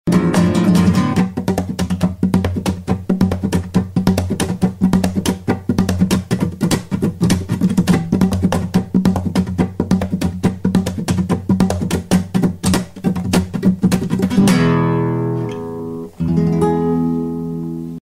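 Acoustic guitar music played in a fast strummed rhythm, closing on held chords that ring out near the end.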